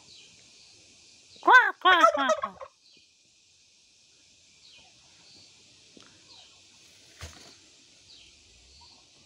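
Domestic turkey tom in display gobbling once about a second and a half in: a quick, loud run of falling notes lasting about a second.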